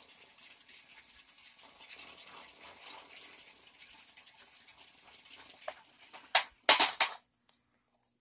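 Sharper Image Thunder Tumbler remote-control stunt car spinning in place on a concrete floor: a faint, steady scratchy patter from its wheels and body. Near the end come a few short, loud clatters.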